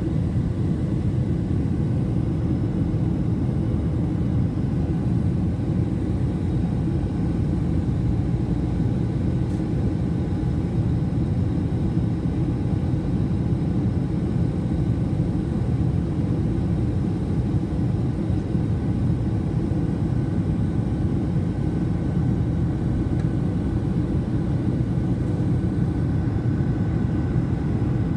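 Jet airliner cabin noise in flight: steady engine and airflow rumble heard inside the cabin, with a few faint steady tones above it.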